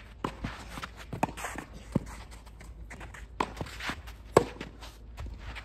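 Tennis rally: sharp pops of rackets striking the ball and the ball bouncing, with shoes scuffing and stepping on the court between shots. The loudest pop comes about four seconds in, as the near player hits a forehand.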